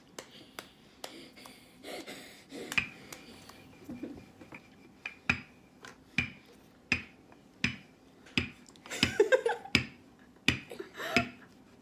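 A string of sharp taps and clicks, roughly one every second, from hands and tools working Play-Doh on a tabletop.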